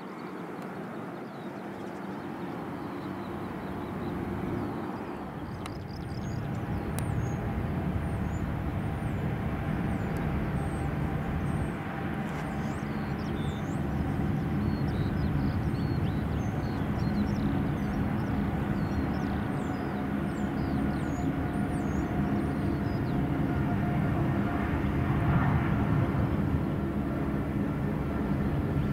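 Boeing 777's jet engines running: a steady drone with whining tones that grows louder over the first dozen seconds and stays loud. Small birds chirp high above it for a while.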